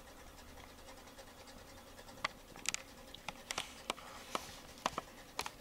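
Faint steady hum, then from about two seconds in a scatter of small, irregular scratches and clicks.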